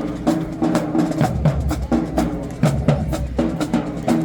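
High school marching band playing, with the drumline's sharp rhythmic hits over low sustained horn notes.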